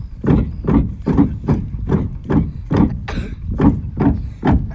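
Steady beat of the Tibetan yak-skin boat dance: the performers' rhythmic thuds, about two a second, each a dull low knock with a short crack on top.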